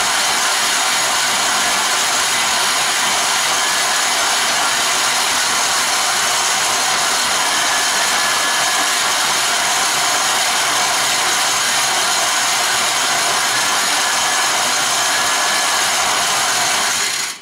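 KitchenAid stand mixer running at top speed with its grain mill attachment grinding rice into meal: a loud, steady grinding whir that cuts off suddenly at the very end when the mixer is switched off.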